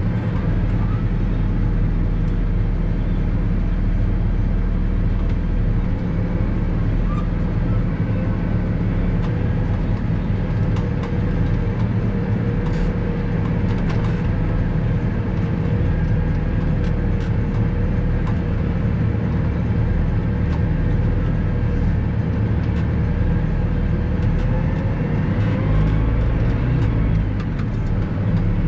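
Valtra 154e tractor running steadily as it drives, a deep diesel rumble with a steady whine over it and scattered light knocks and clicks. Near the end the rumble deepens and the whine rises.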